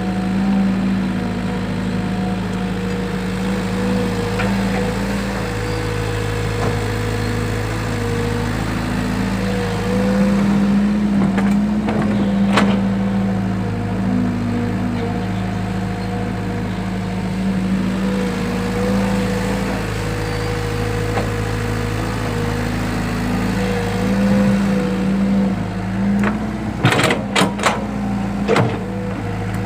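Excavator engine running steadily, with a cluster of sharp metallic knocks near the end.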